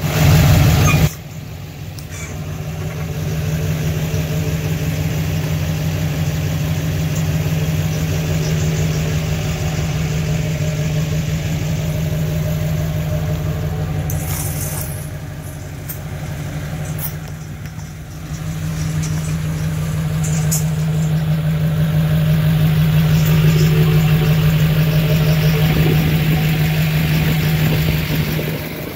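Chevrolet pickup-based tow truck's engine idling: a steady low hum that dips for a few seconds about halfway through. A brief loud rush of noise fills the first second.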